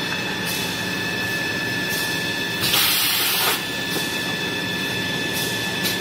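Toilet paper production line machinery running steadily with a constant high whine, with a roughly one-second burst of hiss about three seconds in and a couple of shorter hisses.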